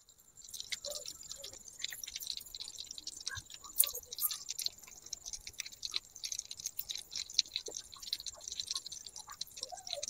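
Chicken pieces deep-frying in hot oil in a miniature clay pot: a faint, steady sizzle with many small crackles and pops scattered through it.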